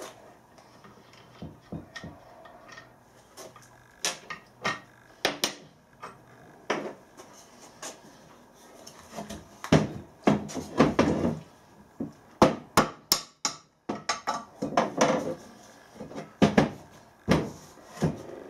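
Hammer knocks and the clatter of small metal engine parts being handled on a workbench, against a cast engine base on wooden blocks. Scattered sharp knocks at first, then a dense run of louder knocks from about ten seconds in.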